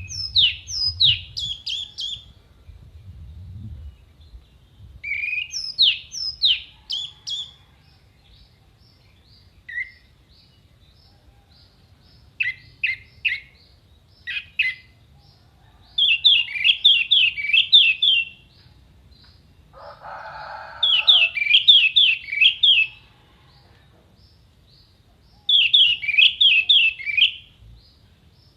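Orange-headed thrush singing in bursts of rapid, sharp down-slurred whistled notes, each phrase lasting a second or two with pauses between. A short, rougher, lower note comes about twenty seconds in.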